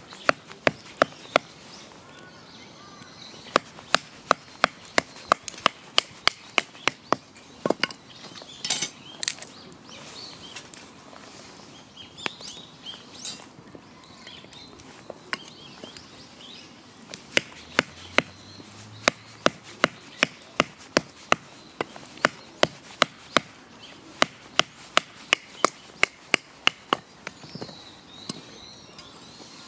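Repeated sharp chopping strikes, about two or three a second, in runs with a quieter pause near the middle.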